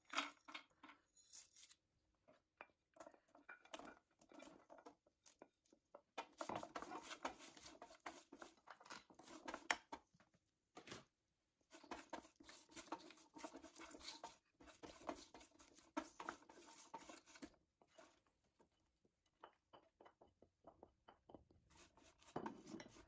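Faint scraping and clattering of a wooden spatula stirring whole spices, garlic, ginger and cashews in a granite-coated frying pan, in irregular bursts, with spices dropped into the pan near the start.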